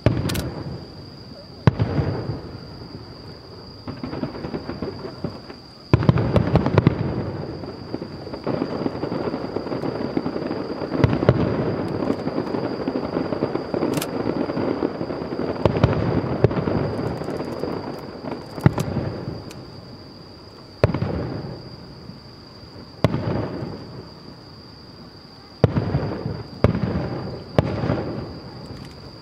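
Aerial firework shells bursting. There are separate booms that ring out and fade, then a dense run of overlapping bursts from about six to nineteen seconds in, and single booms again near the end. A steady high-pitched tone runs underneath throughout.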